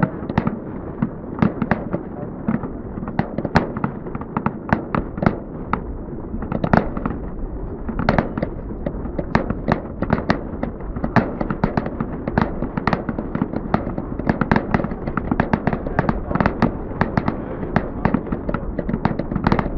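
Fireworks display going off: a dense, unbroken run of bangs and crackles, several a second.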